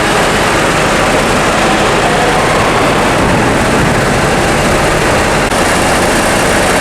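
Loud, steady drone of heavy engines running inside a ferry's enclosed vehicle deck.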